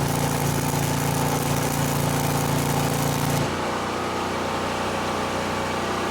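A small engine running at a steady speed with a constant pitch, with a hiss over it that drops away about three and a half seconds in.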